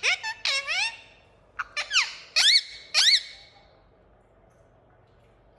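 Indian ringneck parakeet giving a string of shrill squawking calls, each sliding down in pitch, about half a dozen in the first three seconds or so.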